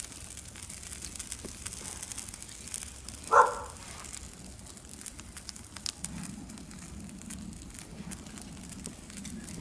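Small, just-lit campfire of resinous fatwood and birch burning, with scattered light crackles. One brief, loud, pitched sound about three and a half seconds in stands out above the fire.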